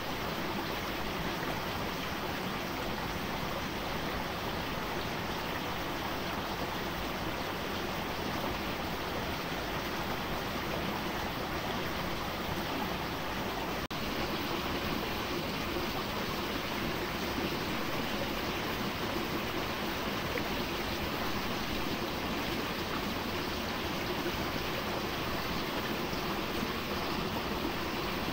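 Stream water rushing steadily. There is a brief break about halfway through, after which the sound is slightly louder.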